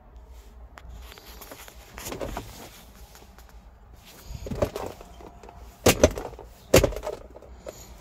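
Plastic clacks and rustling of a Ford Escape's centre console armrest lid being unlatched and swung open, with two sharp clacks about a second apart in the second half.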